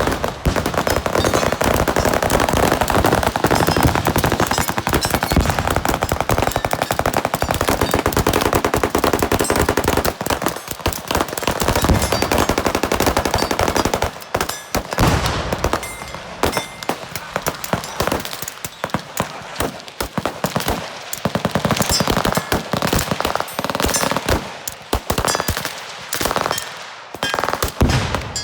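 Rapid gunfire at a range mad minute, shots overlapping into a near-continuous rattle for about the first half, then thinning into shorter strings and separate shots with brief gaps.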